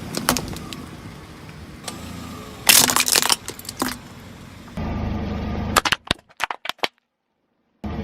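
Objects being crushed: sharp cracks, then a loud burst of crackling and crunching about three seconds in, over a background rumble. A run of separate sharp cracks follows near the end before the sound cuts out abruptly to dead silence.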